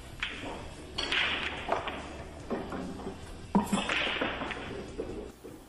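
Pool shot: the cue tip strikes the cue ball with a sharp click, then the balls clack together and the object ball is potted. More knocks and clacks follow over a noisy background.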